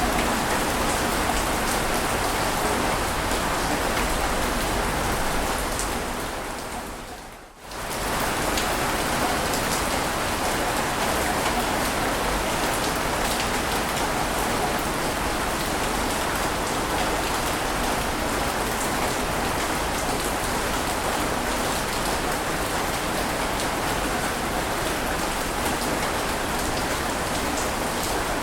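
Steady, even rush of water noise with no distinct wave surges. About seven seconds in it fades down to a brief dip and swells straight back, like the join of a looped recording.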